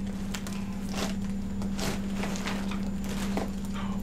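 Clothes hangers clicking and scraping on a rail, and shirts rustling as they are handled: a string of short, irregular clicks and rustles over a steady low hum.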